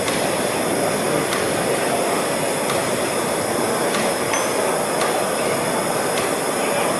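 Loud, steady exhibition-hall background noise, a dense even din, with faint light ticks about once a second.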